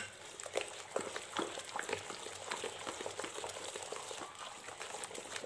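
A hand stirring and squishing a runny batter of eggs, sugar and oil in a glazed clay bowl: a steady stream of irregular wet squelches and small slaps.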